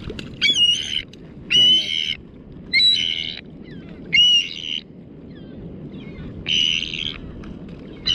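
A bird tangled in fishing line and hooked gives harsh distress squawks, five in a row about every second, each about half a second long.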